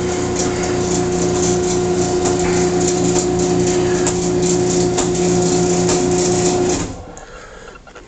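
Craftsman half-horsepower garage door opener motor running with a steady hum and light ticking. It stops abruptly nearly seven seconds in.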